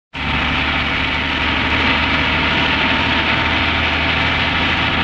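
Heavy truck engine running steadily. It cuts in abruptly just after the start.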